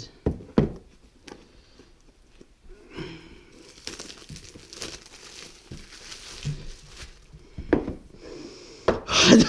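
A cardboard headphone retail box handled and worked open by hand: rustling and crinkling of the box and its packaging, with a few light knocks and clicks of the box against the table and a louder burst of handling near the end.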